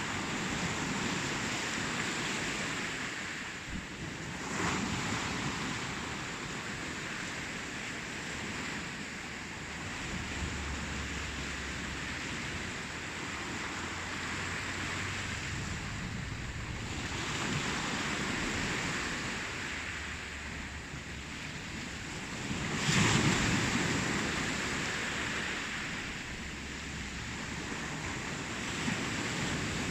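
Ocean surf: waves breaking and washing in, the hiss swelling and falling back every few seconds, with the loudest surge about three-quarters of the way through.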